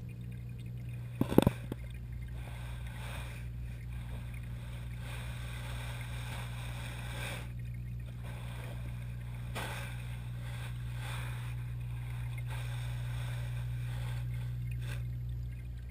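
Steady low hum and water-circulation noise of a saltwater pond's pump system, heard underwater. A brief cluster of sharp knocks about a second and a half in.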